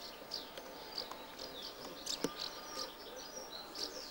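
Small birds chirping outdoors: short, high calls, many dipping in pitch, several a second and overlapping. A single sharp click about two seconds in.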